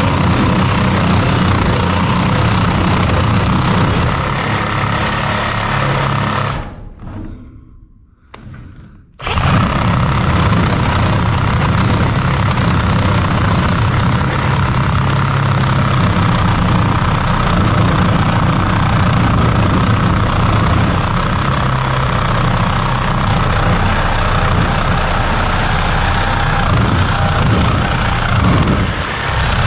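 Cordless power saw cutting through a steel coupling on a 1-inch gas pipe, running steadily. It stops about six and a half seconds in and starts again about two and a half seconds later.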